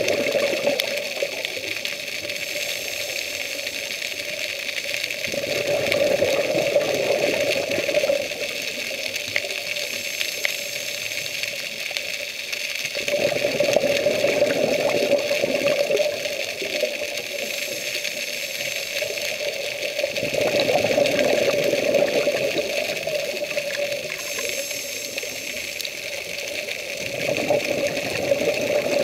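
A scuba diver breathing through a regulator, heard underwater: four breaths about seven seconds apart, each a short high hiss on the inhale followed by a few seconds of bubbles on the exhale, over a steady underwater hiss.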